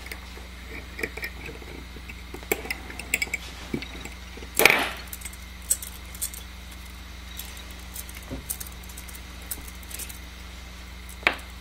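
Small metal clicks and clinks of a steel wire-twisting instrument and ligature wire working against the metal Erich arch bars on a dental model, with a louder knock about four and a half seconds in and another near the end.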